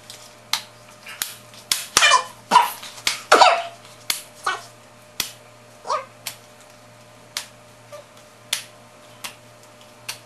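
Playing cards tossed and slapped down on a pile, a string of sharp smacks about once or twice a second. A dog gives a few short yelps that fall in pitch, two close together two to three seconds in and one more around six seconds.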